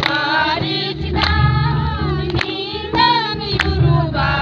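A group of villagers singing a welcome song together, with hand claps in time about once a second.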